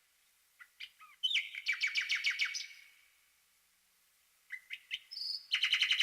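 A songbird singing two song phrases. Each opens with a few short chirps and runs into a fast trill of about ten notes a second, one about a second in and another near the end.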